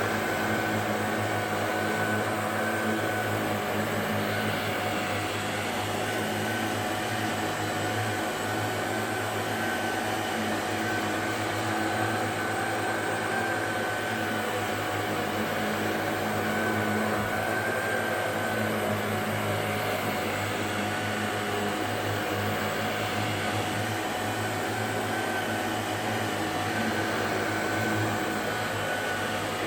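Shark DuoClean NV801UK vacuum cleaner running steadily with a whine, worked repeatedly over the same patch of rug.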